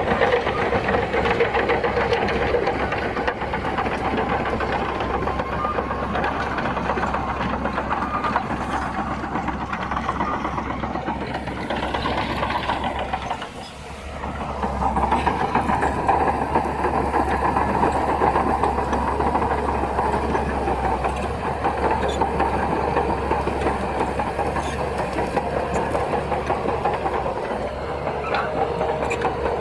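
Crawler bulldozer's diesel engine running steadily under load, dropping briefly about halfway through, then picking back up.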